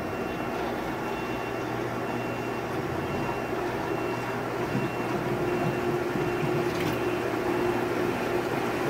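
Pool pump running steadily with the multiport valve set to waste, flushing drilling swarf out of the pipework. Its motor hum and water flow grow slightly louder over the seconds.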